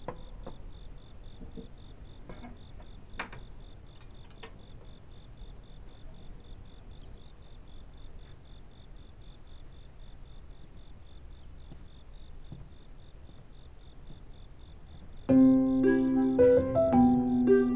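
Quiet room tone with a faint, steady, high-pitched pulsing chirp and a few soft clicks. About fifteen seconds in, piano music begins.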